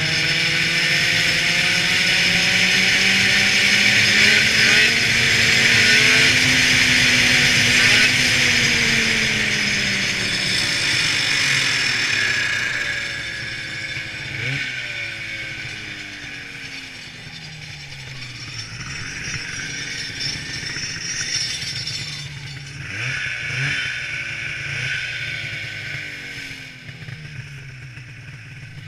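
1995 Ski-Doo Summit 670 snowmobile's two-stroke twin engine running hard at speed under a loud rushing hiss, then easing off about twelve seconds in. A few quick throttle blips follow as it runs slower and more unevenly to the end.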